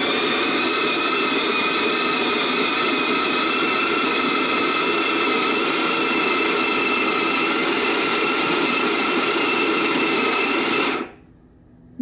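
Bodum Bistro electric conical burr grinder running on its timer and grinding oily coffee beans at a fine espresso setting: a steady motor whine over the grinding, which cuts off near the end.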